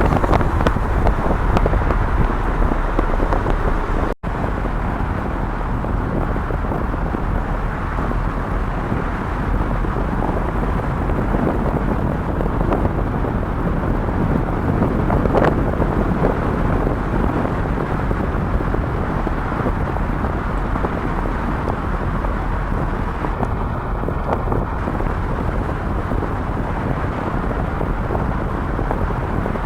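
Strong wind buffeting the microphone over a steady rumble of road traffic, with a heavy low roar. The sound cuts out for an instant about four seconds in.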